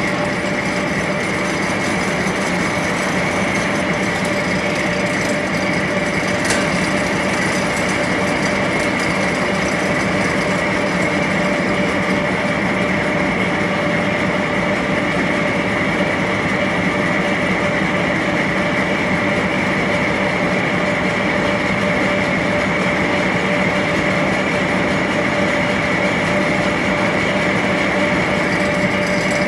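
1A501 machine tool running steadily on a test run after repair: an even mechanical whirr with a constant whine and hum, no change in speed.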